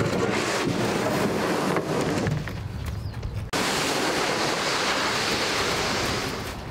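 Wind rushing on the microphone by the sea, a steady noisy roar with the wash of the shore under it. It thins out briefly, then comes back suddenly and brighter about halfway through.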